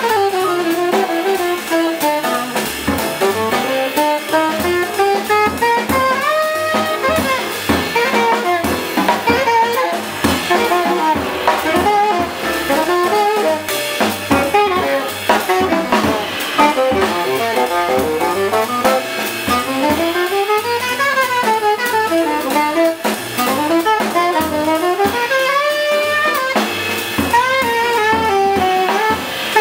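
Jazz quintet playing live: a tenor saxophone solos in fast running lines that sweep up and down through its range, over drum kit with cymbals, double bass and piano.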